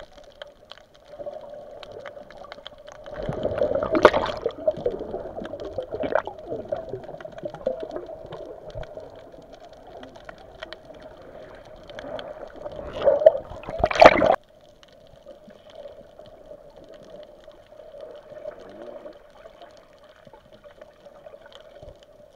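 Muffled underwater sound picked up by a camera beneath the surface: water gurgling and swishing over a steady low hum. It swells louder twice, about three to four seconds in and again around thirteen to fourteen seconds, the second swell cutting off suddenly.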